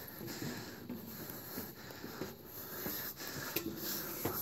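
Footsteps on a steel staircase with diamond-plate treads, a few faint clicks at uneven spacing, along with a person's breathing.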